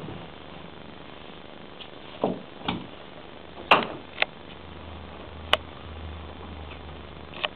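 A few scattered light knocks and taps, about five, as a kitten paws at and bumps against a wooden door.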